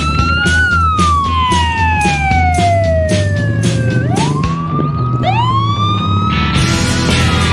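A wailing siren that rises quickly and then falls slowly over about three seconds, rising again twice in the second half, over music with a steady beat.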